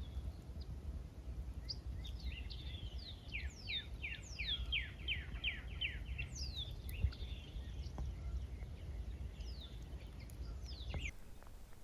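A songbird singing: scattered high chirps and, about four seconds in, a quick run of about ten falling notes, over a steady low rumble.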